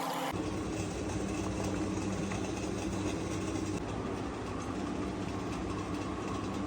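A steady low machine hum with a rumbling noise underneath, holding evenly throughout.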